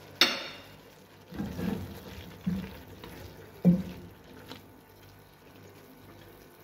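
Wooden spoon stirring a wet mix of minced beef, vegetables and grated tomato in a pot: a few irregular knocks and scrapes of the spoon with soft wet squelching, dying away after about four and a half seconds.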